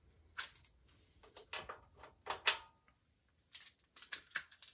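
Irregular metal clicks and clinks, a dozen or so sharp ones with short gaps, some ringing briefly: steel sockets being handled on a socket rail and tried on acorn nuts to find their size.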